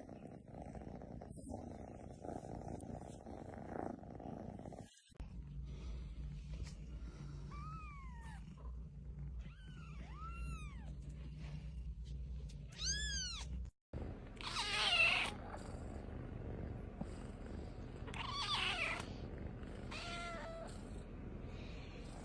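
Domestic cats meowing across a few short clips: several short meows that rise and fall in pitch over a steady low hum, then three louder, longer meows in the second half.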